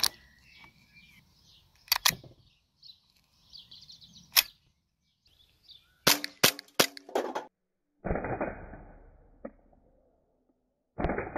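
VFC Glock 19 Gen 3 gas blowback airsoft pistol: a magazine clicks home and the slide is worked with sharp clicks, then five quick shots, about three a second, each with the slide snapping back. Two longer, duller bursts follow, a few seconds apart.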